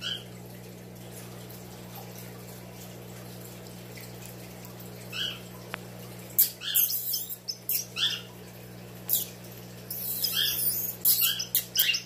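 Pacific parrotlet giving a rapid, irregular series of short, harsh squawks that drop in pitch, starting about five seconds in and coming thick and fast in the second half: an agitated bird threatening a finger. A steady low hum runs underneath.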